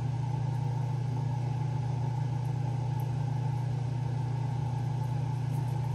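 A steady low hum with a rumble under it, unchanging in level.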